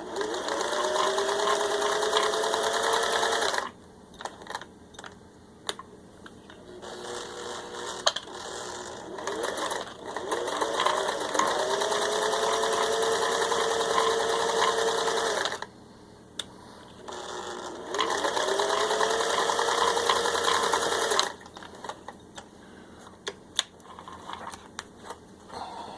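Singer 401A sewing machine stitching through four layers of denim in three runs. Each time, the motor's whine rises as it speeds up, then holds steady while it sews, and stops abruptly. Between the runs there are scattered light clicks.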